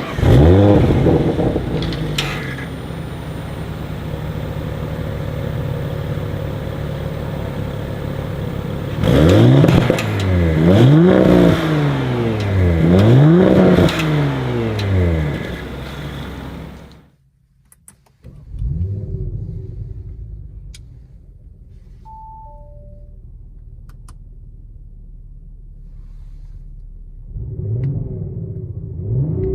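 2021 Audi RS5 Sportback's 2.9-litre twin-turbo V6 starting with a flare of revs, settling to a steady idle, then blipped three times in quick succession. After a brief break it idles more quietly, with two short chime tones, and revs once more near the end.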